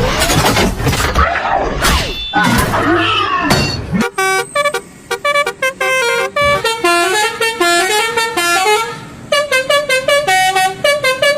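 Basuri telolet bus horn, a multi-tone air horn, playing a quick tune of stepped notes that starts about four seconds in and pauses briefly near the end. Before it, a loud jumble of noise with sliding tones.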